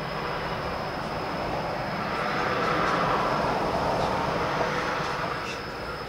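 A vehicle passing: a broad rushing noise that swells to a peak about halfway through and fades away toward the end, over a steady high tone.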